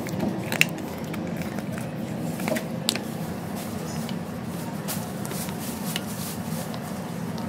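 Ketchup squeezed from a plastic pouch onto a ceramic plate, with crinkling of the packet and scattered small clicks and squishes, over a steady low hum.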